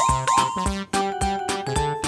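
Background music: upbeat synthesizer tune with a steady beat and short swooping effects.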